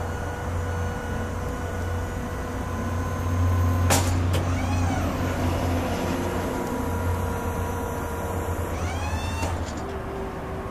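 Versalift bucket truck's hydraulic boom lowering with the truck running: a steady low hum with a faint higher whine. A sharp clunk about four seconds in is followed by wavering squeals, with another rising squeal near the end.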